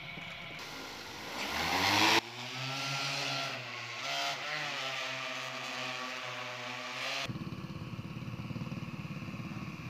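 Rotors of an agricultural crop-spraying drone spinning up with a rising hum, then a steady, pitched multi-rotor drone drone hum as it flies. About seven seconds in, the sound changes to a rougher, fast-pulsing hum.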